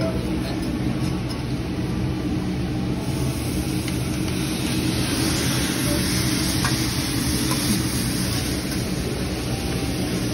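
Food sizzling on a hibachi griddle over a steady low hum, the hiss growing louder about three seconds in.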